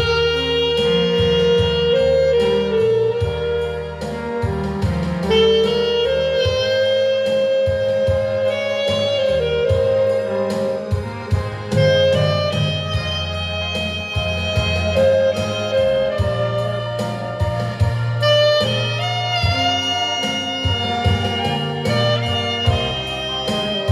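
Saxophone playing a lead melody of held and sliding notes over a band accompaniment with bass and drums.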